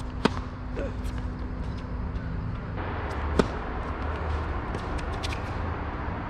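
Tennis rally: a sharp pock of a racket striking the ball about a quarter second in and another about three and a half seconds in, with fainter pocks of distant shots and ball bounces later, over a steady low rumble.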